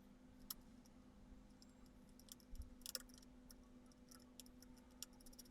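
Faint, scattered clicks of a small screwdriver turning the screw that fixes an NVMe SSD to a motherboard, over near silence with a faint steady hum.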